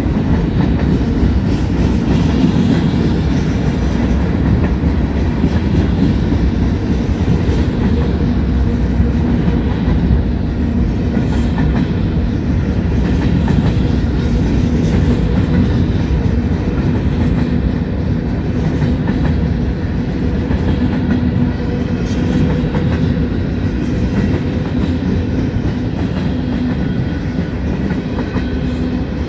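Freight train cars, covered hoppers and tank cars, rolling past: a steady rumble of steel wheels on the rails.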